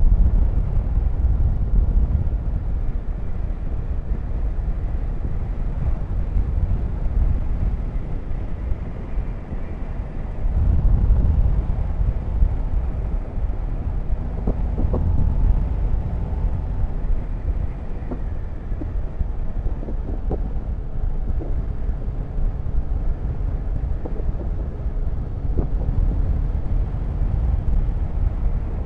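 Motorcycle riding at speed: a heavy low wind rumble over the microphone with the engine running underneath, easing briefly about ten seconds in.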